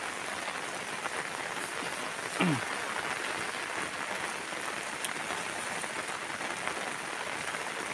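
Steady rain falling on tea bushes, an even hiss. About two and a half seconds in, a brief sound like a voice slides down in pitch.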